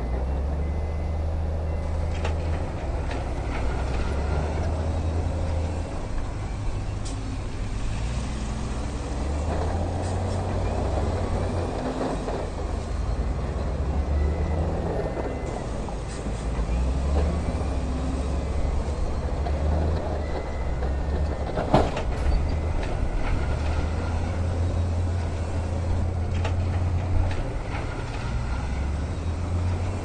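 Heavy diesel dump-truck engines running, a low rumble that swells and eases, with a single sharp knock about two-thirds of the way through.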